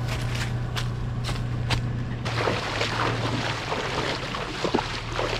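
Off-road vehicle engine idling with a steady low hum. There are a few sharp knocks in the first two seconds, and a steady hiss from about two seconds in.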